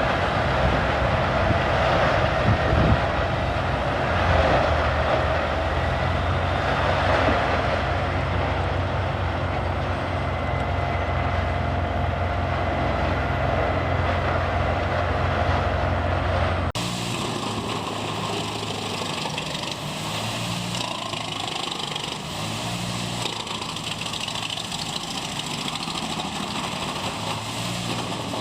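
Heavy wood-processing machinery running: a steady low engine drone with grinding noise. About 17 seconds in, the sound cuts abruptly to a different, somewhat quieter machine.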